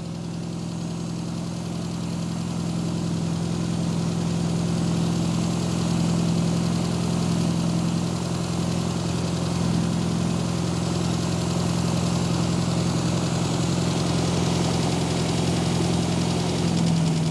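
Austin Mini A-series four-cylinder engine with twin SU carburettors running at a steady, too-high idle while still cold, growing a little louder over the first few seconds.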